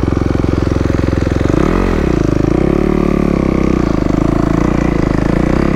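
Kawasaki KX250 dirt bike engine running at low revs. A quick throttle blip rises and falls about two seconds in, followed by a few smaller uneven rises before it settles back to a steady beat.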